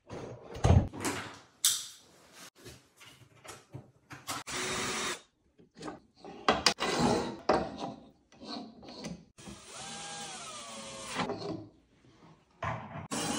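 Power drill running in a few short bursts and one longer run about ten seconds in, with knocks and clatter of wooden cabinet parts being handled between them.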